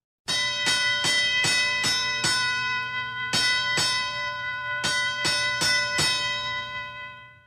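Boxing ring bell struck in two quick runs of strikes, about two to three a second, with a short pause between them; the ringing then fades away near the end.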